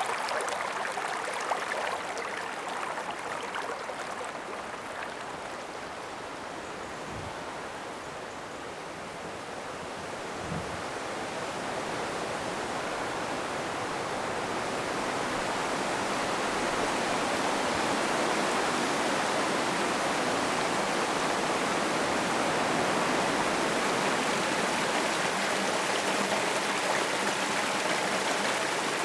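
Woodland brook running over rocks: a steady rush of falling and flowing water, a little quieter in the first third, then growing fuller and louder and holding steady.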